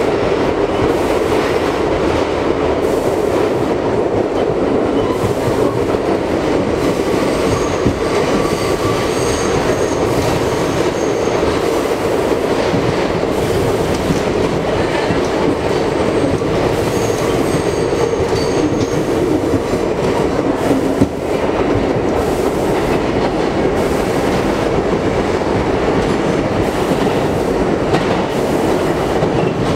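Running noise inside a moving R42 New York City subway car: a steady rumble of the wheels on the rails. Thin high-pitched wheel squeals come twice, and there is a single knock about two-thirds of the way through.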